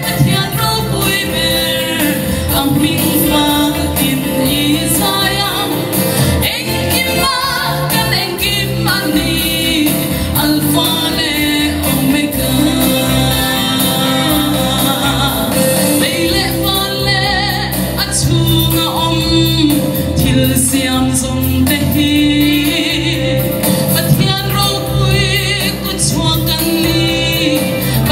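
A woman singing a Mizo gospel song solo into a microphone over instrumental accompaniment, her voice wavering with vibrato on held notes.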